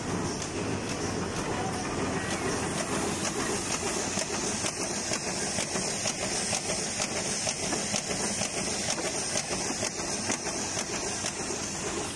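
Boway SXQ-180 automatic book-signature sewing machine running at speed: a steady, continuous mechanical clatter.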